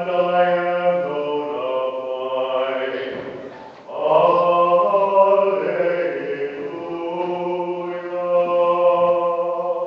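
Slow liturgical chant sung in long held notes, in two phrases with a break about three to four seconds in. This is the kind of sung chant that falls between the Epistle and the Gospel at Mass.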